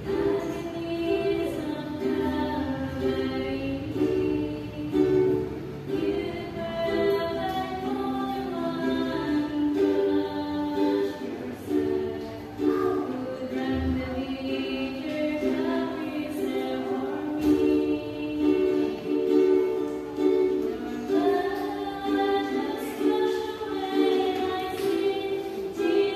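Woman singing a worship song, accompanying herself on a strummed ukulele.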